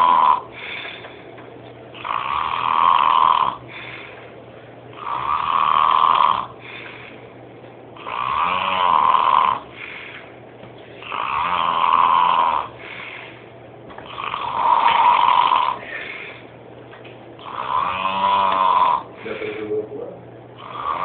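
A man snoring heavily in his sleep: a long, loud snore about every three seconds, seven in all, with quieter breathing between them.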